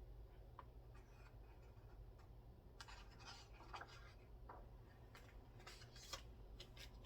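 Near silence: room tone with a low hum and a few faint small clicks and scratchy rustles.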